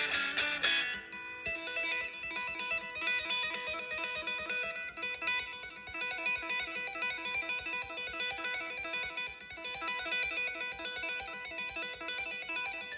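Electric guitar played through a headphone amplifier: strummed chords die away about a second in, then a fast, continuous stream of repeated notes is tapped out on the fretboard with both hands.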